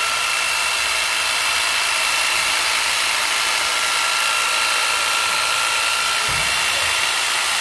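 Electric hedge trimmer (110 V, 320 W, 35 cm blade) running steadily with no load, its motor and reciprocating blades giving an even buzz with a high, steady whine.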